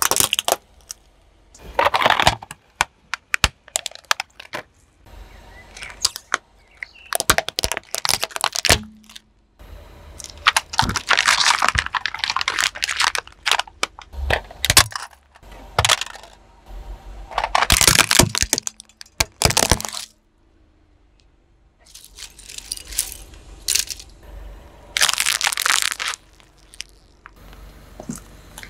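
Things being crushed under a car's tyre: a string of sharp cracks, crunches and crackling that come in bursts of a second or two, with short pauses between them.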